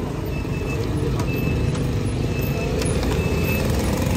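Steady low rumble of a heavy vehicle engine running close by, with a short high beep repeating at an even pace. A few sharp cracks of thin wooden crate slats being pried off.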